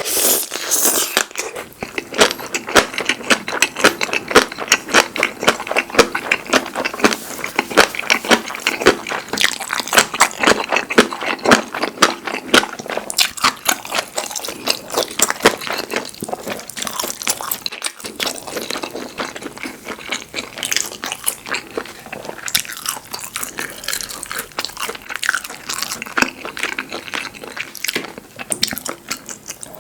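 A person chewing and biting food close to the microphone: a dense, continuous run of quick wet clicks and crunches.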